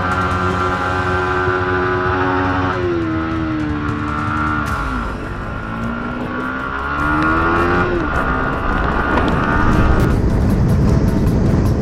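Yamaha sport motorcycle's engine running at a steady note. About three seconds in the note drops, then rises again about six seconds in. From about eight seconds a rough rushing noise covers it.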